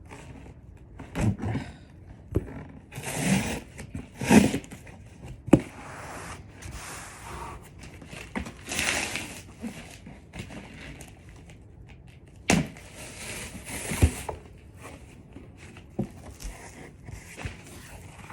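Cardboard box and paper packing being opened and handled: irregular rustling, crinkling and scraping, with a few sharp knocks.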